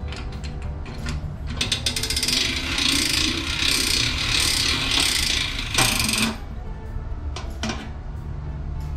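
Hand-cranked vertical stainless-steel sausage stuffer, its gears clattering rapidly as the crank is turned fast to wind the piston back up. The clatter starts about a second and a half in and stops abruptly after about five seconds, with a few single clicks before and after it.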